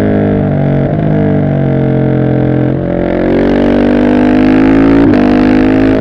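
Husqvarna 701 SM's single-cylinder engine through an Arrow exhaust with the catalytic converter removed, pulling hard under acceleration. The pitch climbs steadily and drops sharply three times as it shifts up: about a second in, near the three-second mark and about five seconds in.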